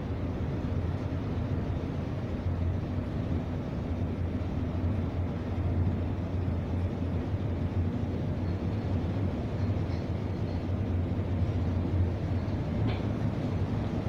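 Steady low drone of a bulk carrier's engines and machinery under way, heard inside the ship's bridge.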